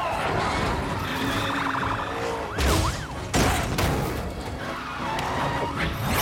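Car-chase sound mix: tyres skidding and car engines running under a music score, with two loud impacts about two and a half and three and a half seconds in.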